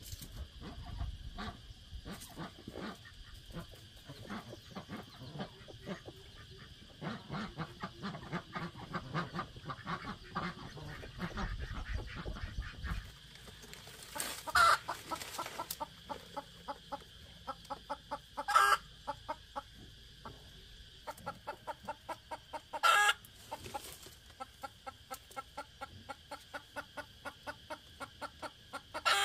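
Chickens clucking in long runs of short, quick clucks, about five a second. A few louder, sharp sounds stand out about halfway through and near the end.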